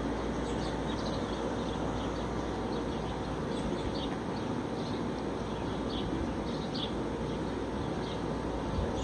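Steady outdoor background rumble, with faint, scattered short high chirps of small birds.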